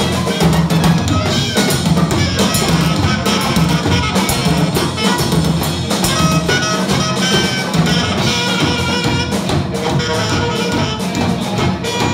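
Live band playing: drum kit, electric guitar, bass and saxophone.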